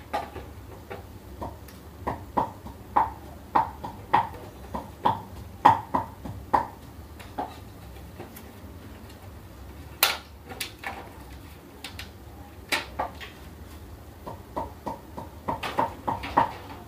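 Light clicks and taps from hands and a screwdriver working the plastic and metal parts of an HP LaserJet Pro MFP M26a as the printer is taken apart and its top unit lifted off. The clicks come in a regular series, about one every half second or so. A few sharper knocks come about ten and thirteen seconds in.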